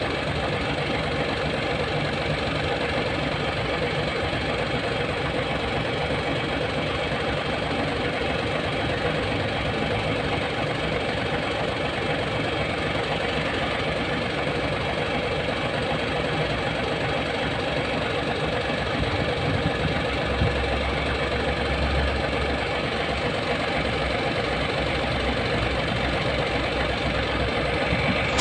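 Hino E13C diesel engine idling steadily, with a brief deeper rumble about two-thirds of the way through.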